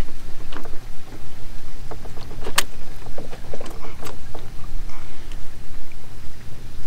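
Plastic clicks and knocks of a coolant hose and its fittings being handled and worked into place in the engine bay, with one sharp click about two and a half seconds in, over a steady low rumble.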